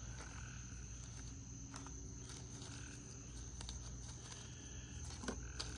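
Quiet background: a steady low hum and a continuous high, thin steady tone, with a few faint light clicks of something being handled near the end.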